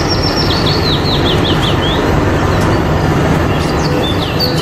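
Diesel engines of two Komatsu crawler bulldozers running steadily under load as they push dirt, a continuous low drone. A bird sings a quick run of descending chirps over the first two seconds and a few more chirps near the end.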